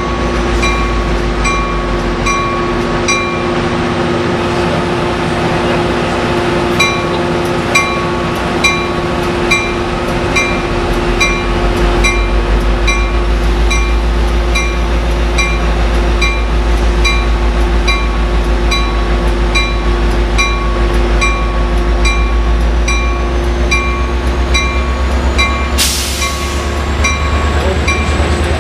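Coaster commuter train's F40PHM-2C diesel locomotive running as the train pulls slowly away, its engine rumble growing heavier about a third of the way in. A grade-crossing bell rings steadily, a little over two strikes a second, and a short hiss cuts in near the end.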